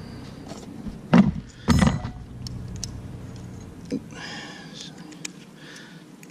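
A 25 mm OLFA snap-off utility knife and its steel blade being handled while the blade is changed: two sharp knocks about a second apart, the second with a light metallic rattle, then small clicks and a brief metallic scrape.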